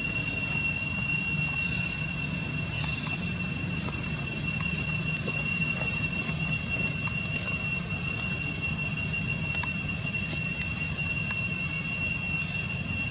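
Steady, unbroken high-pitched insect drone with a low rumble beneath it.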